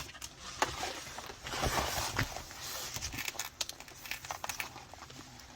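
Rustling and crinkling of a diamond painting canvas and its plastic cover being handled and turned over for measuring, with scattered light clicks and taps, dying down near the end.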